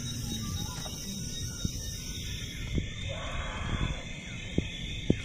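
A metal ladle clinks and scrapes in an aluminium pressure cooker while curry is served, giving a few sharp clinks, over a steady chorus of night insects.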